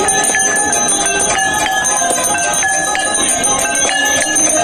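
Temple hand bells rung fast and without pause for the aarti, many metallic strokes a second overlapping into one continuous clangour.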